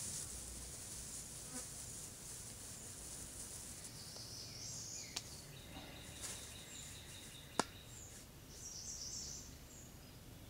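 Faint insect buzzing in the woods, with two sharp clicks, about five and seven and a half seconds in.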